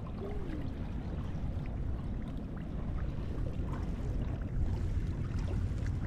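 Wind rumbling on the microphone, with choppy river water lapping and splashing against a small boat's hull in small faint ticks and splashes.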